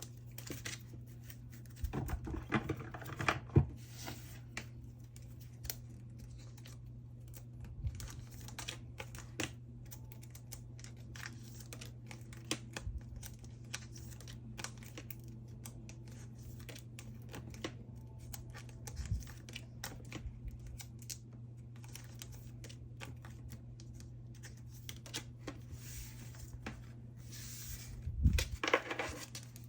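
Plastic photocard sleeves crinkling as cards are slid out of them, with scattered light clicks and taps of the cards. There are louder bursts of crinkling about two seconds in and near the end, over a faint steady hum.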